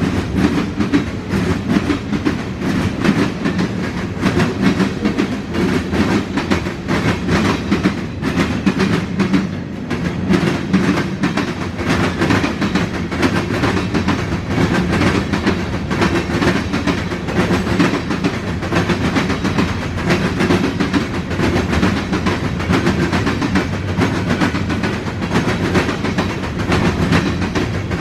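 Freight train cars rolling past, steel wheels clicking over the rail joints over a continuous loud rumble and rattle.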